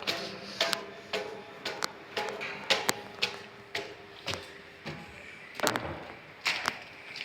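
Irregular sharp knocks and taps, about two a second, some with a brief ringing after them.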